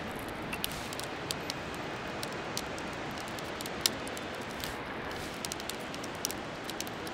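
Steady rushing noise of wind and surf on an open beach, with scattered faint clicks.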